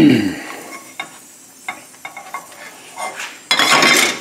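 Potato pancakes being turned in hot oil in a nonstick skillet with a plastic spatula. A pancake slaps down at the start and sizzles, the spatula taps lightly on the pan a few times, and near the end there is a loud half-second scrape as the skillet is lifted off the gas burner's grate.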